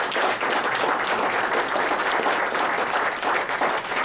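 Audience applauding, a dense, steady spread of many hand claps.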